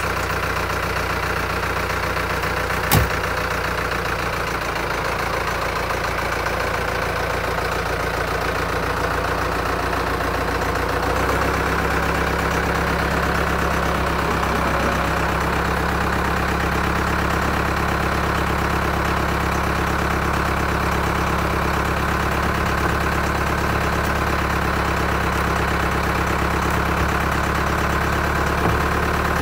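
Farm tractor engine idling steadily close by, its note shifting slightly about eleven seconds in. A single sharp clank about three seconds in.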